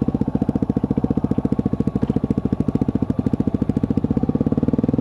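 Yamaha WR250F's single-cylinder four-stroke engine running at low, steady revs, its firing pulses coming as an even, rapid thump.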